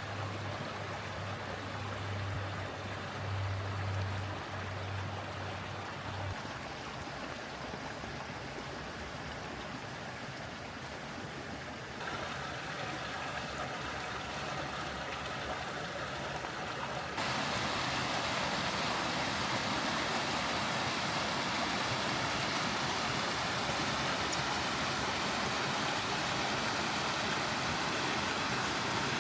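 Rushing stream water, a steady hiss that jumps louder in two sudden steps, about twelve and seventeen seconds in. A low steady hum underlies the first few seconds.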